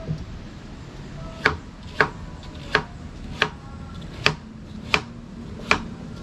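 Knife chopping vegetables on a cutting board: a steady run of sharp strokes, about seven of them, roughly every two-thirds of a second.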